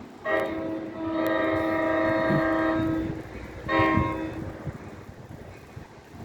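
NJ Transit train's air horn sounding a chord in three blasts: a short one, a long one, then a short one. Train running noise rumbles underneath.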